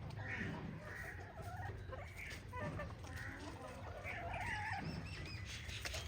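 A flock of chickens clucking, with many short, overlapping calls, over a steady low rumble.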